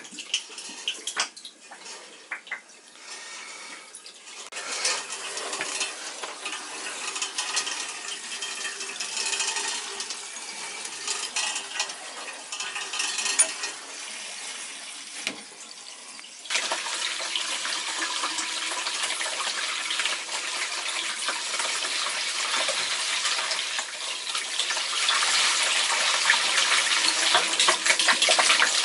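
Flush water rushing out of a hose into a shower stall as a hydronic heating zone is purged of its old acidic antifreeze. A few clicks and knocks early on, then the flow jumps suddenly louder a little past halfway and builds further near the end.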